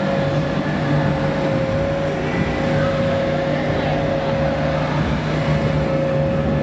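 Steady machine drone with a constant mid-pitched whine over a low hum.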